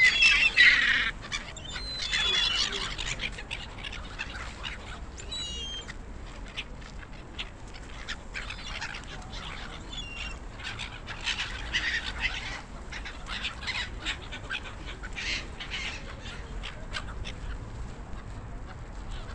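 A flock of gulls calling, with many overlapping squawks and cries that are loudest in the first three seconds and then come in scattered bouts.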